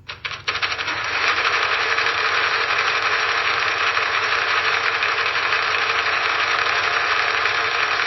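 Sewing machine stitching: a few single stitches, then from about half a second in the machine runs at speed in a fast, steady run of stitches.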